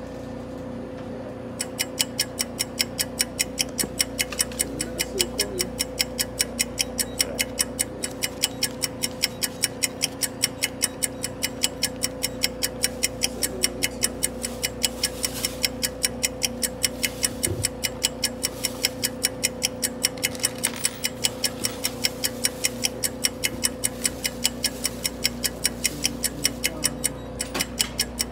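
Steady, rapid ticking, about two to three even ticks a second, over a constant low electrical hum. The ticking starts a second or two in and pauses briefly near the end.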